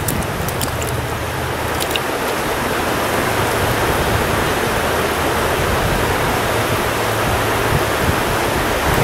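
Shallow stream water running steadily over rocks, with a few brief splashes in the first two seconds as a hooked trout is handled at the water's surface.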